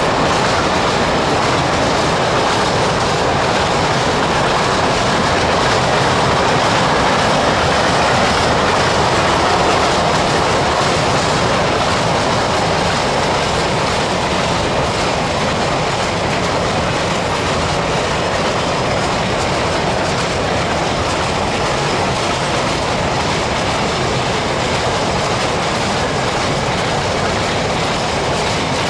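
A freight train of empty open steel wagons rolling steadily past, its wheels running on the rails. The sound eases off a little in the second half.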